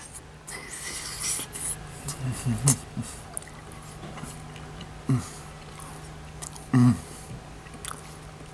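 A man eating a hot forkful of baked potato: chewing and breathy huffs of air, with a few short, low hummed sounds, the loudest near the end.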